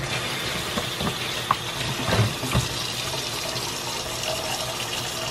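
Kitchen tap running steadily into a plastic container of oysters in a stainless steel sink, with a few brief knocks as the oyster shells are handled and scrubbed with a toothbrush.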